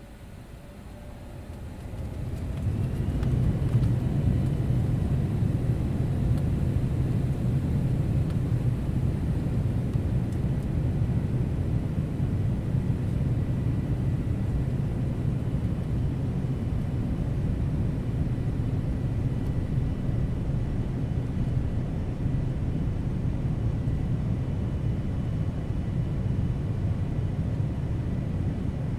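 Airliner jet engines heard from inside the cabin, rising over the first few seconds to a steady low rumble with a faint high whine that climbs and then holds.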